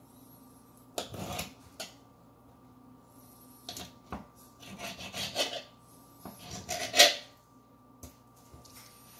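Fillet knife slicing through a sail catfish fillet and scraping on a plastic cutting board, in several short rasping strokes; the loudest comes about seven seconds in. A faint steady hum runs underneath.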